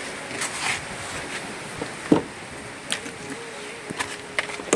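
Steady rushing outdoor noise, with a few scattered soft knocks. A faint steady tone comes in near the end for about a second and a half.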